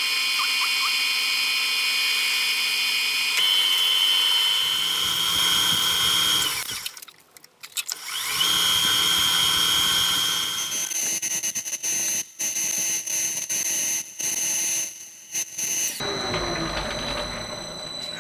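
Metal lathe running while a carbide-insert tool turns a spinning metal part: steady machining noise with a high whine. It drops briefly to near quiet about seven seconds in, then resumes and turns choppy, starting and stopping, for several seconds.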